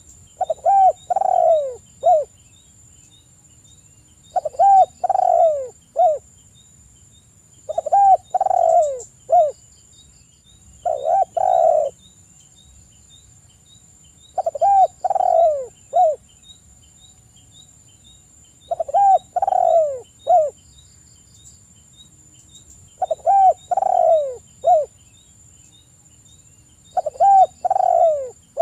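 Spotted dove cooing: eight phrases, about one every three and a half to four seconds. Each phrase is two or three low, bending coos ending in a short clipped note.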